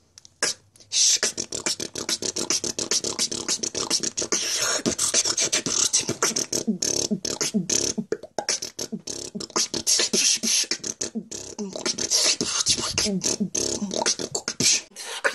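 Solo beatboxing: a fast run of vocal kick, snare and hi-hat sounds with hissing high-end strokes and short pitched vocal slides, starting about a second in.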